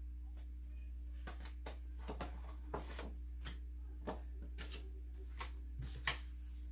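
Paper greeting card being handled: scattered rustles, light taps and clicks as it is held open, with a sharper tap about six seconds in as it is laid down on the table, over a steady low hum.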